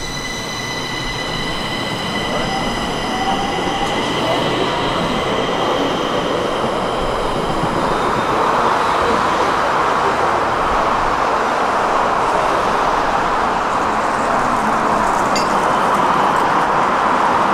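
Subway train running on the rails, with several steady high whining tones that fade away about halfway through, while the rushing running noise grows steadily louder.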